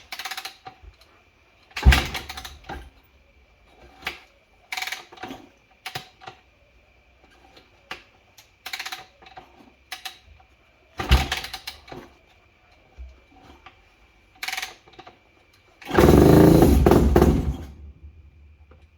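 Yamaha WR250 four-stroke single being kick-started: a series of separate kicks with short bursts of cranking. Near the end the engine fires and runs for about two seconds before dropping away.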